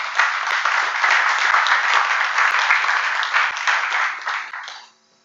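Audience applauding, swelling in the first second and dying away near the end.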